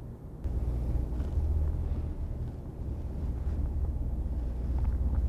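Steady low rumble that starts about half a second in, with a few faint clicks near the end.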